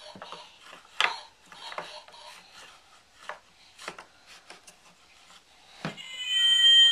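Wooden puzzle pieces knocking and scraping against a wooden peg-puzzle board, a scatter of light clacks. Near the end a loud electronic sound of several steady pitches starts and runs for about a second.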